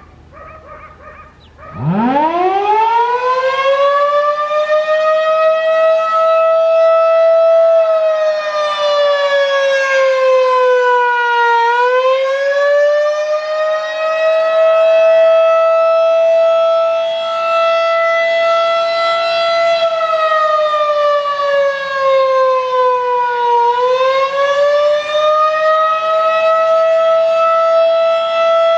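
Federal Signal 2001-DC electromechanical outdoor warning siren starting up for a test. It winds up quickly from a low pitch to a loud, steady single tone, and the pitch sags and recovers twice along the way.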